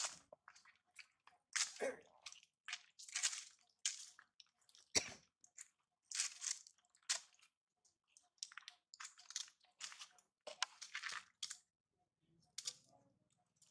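Dry fallen leaves crunching and rustling in short, irregular bursts under moving feet, with a dull thump about five seconds in.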